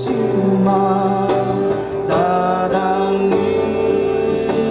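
Live band playing: an acoustic guitar and an electric bass, with a sung vocal line over them.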